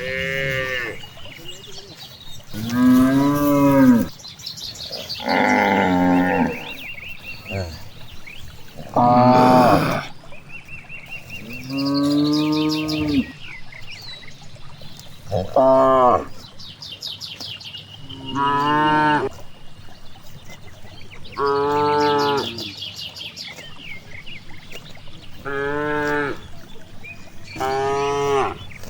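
Cows mooing again and again: about ten long calls, each a second or so, a few seconds apart, their pitch rising and then falling.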